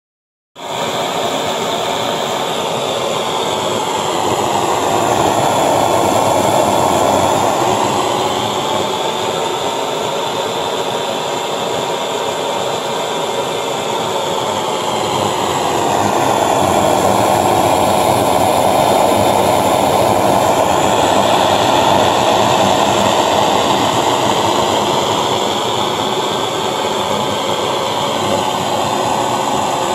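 Clayton & Lambert brass pressurized blow torch burning with a loud, steady rushing noise from its burner, swelling slightly in loudness now and then.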